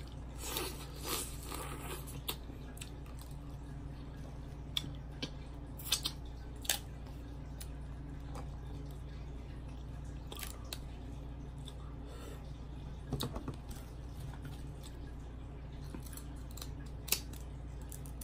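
Sparse small clicks and crackles of shrimp and crab-leg shells being peeled and handled by hand, with quiet eating sounds, over a steady low hum. A sharper click near the end as seafood shears come into use.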